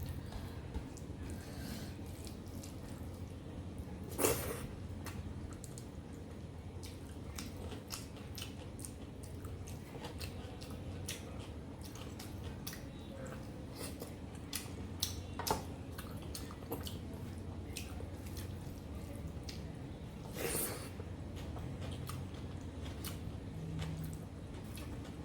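Close-miked chewing of mutton curry and rice: irregular wet mouth clicks and smacks over a steady low hum, with two louder brief sounds about four seconds and twenty seconds in.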